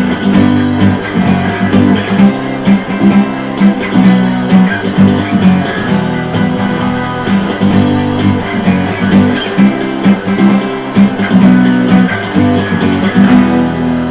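Guitar strummed in a steady rhythm, playing the chords of a rock song without singing. Near the end the strumming stops and a last chord rings on.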